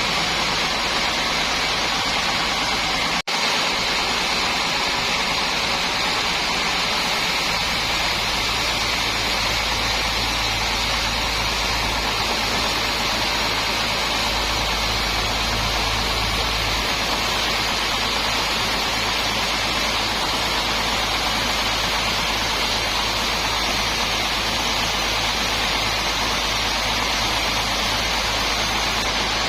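Sawmill machinery running with a steady, loud mechanical noise, broken by a momentary dropout about three seconds in.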